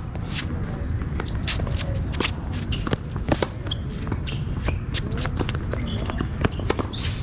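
Tennis players' shoes shuffling and scuffing on the court in many quick, irregular steps, with short squeaks and a few knocks such as ball bounces, over a steady low rumble.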